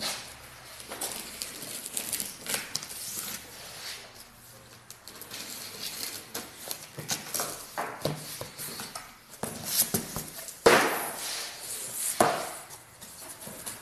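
Cardboard shipping carton being unpacked by hand: plastic packing strap pulled off, taped cardboard and flaps rustling, scraping and clicking. A louder scraping rasp comes near the end as the box is opened.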